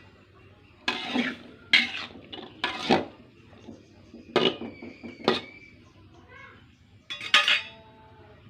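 A metal utensil clanking and scraping against a cooking pot, with about six sharp knocks. A couple of them leave a brief metallic ring.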